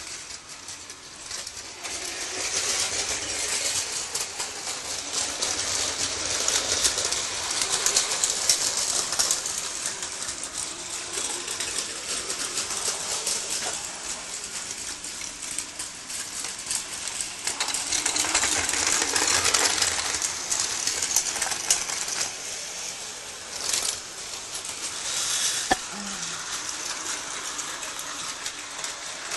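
Battery-powered plastic toy trains running on plastic track: a steady whirring rattle of small motors and wheels, with a few sharp clicks near the end.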